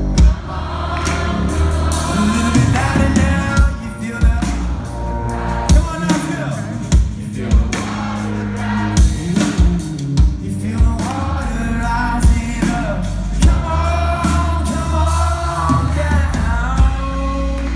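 Live band music with singing: sung voices over a low, steady accompaniment, punctuated by sharp drum hits about once a second.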